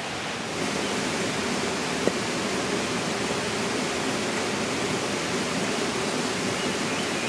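Steady rush of a nearby waterfall, with one light click about two seconds in.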